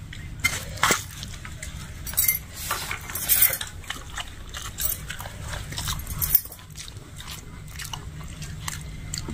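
Eating sounds: fish curry and rice squished and mixed by hand, and chewed with wet mouth smacks, a scatter of short clicks and squelches over a low steady hum.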